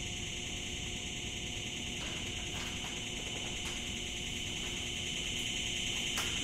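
Steady high-pitched hiss of electronic noise in two high bands, part of the piece's electronic track, over a low steady hum, with a few faint clicks scattered through it.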